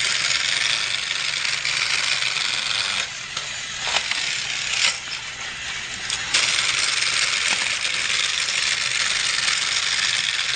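Battery-powered Trackmaster toy train running on plastic track: a steady high rattling whir. It drops quieter for about three seconds in the middle, with a couple of sharp clicks, then comes back at full strength.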